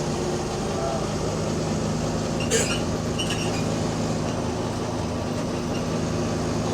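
Bus engine running steadily with a low, even drone, on a bus that has an exhaust leak. A short sharp rattle about two and a half seconds in, and a fainter one just after.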